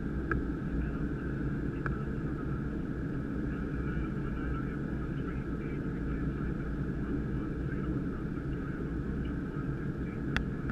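Steady cockpit noise of a Gulfstream G550 jet on approach: a low rumble of airflow and engines with a steady higher hiss. A sharp click comes about ten seconds in.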